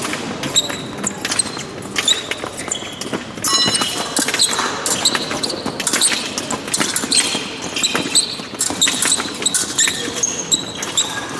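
Épée fencers' footwork during a bout: shoes stamping and squeaking on the piste, with scattered short metallic clinks from the blades.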